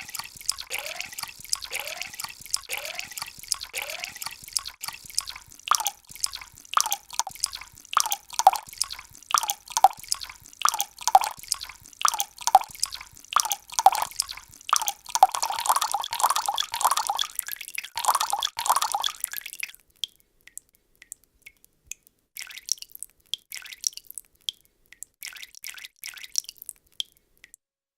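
Water drops falling into water, one after another, each a short plop rising in pitch. They start slow and low, come faster and higher about five seconds in, and stop about twenty seconds in. A few faint, higher drips follow near the end.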